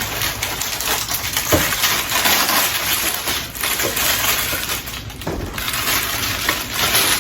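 Crinkling and rustling of packaging being handled, a continuous crackle with a few soft knocks.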